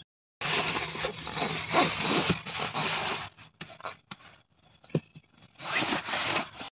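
Nylon sleeping bag rustling and rubbing as it is spread out, in two long spells of rustling with a short knock between them.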